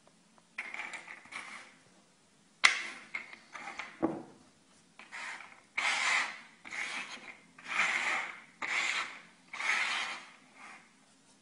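A metal thimble scraping and rolling across a hard surface as a cat paws at it: a run of short rasping rushes, about one a second in the second half, with a sharp knock about two and a half seconds in and another near four seconds in.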